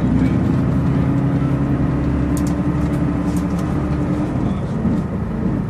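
Volvo Citybus double-decker's diesel engine running on the move, heard from inside the upper deck, with a few light rattles. The engine note holds steady, then drops about four and a half seconds in.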